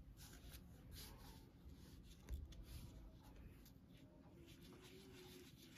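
Faint, repeated soft strokes of a small paintbrush scooping thick paint from a plastic jar and brushing it over a painted piece of card, against near-silent room tone.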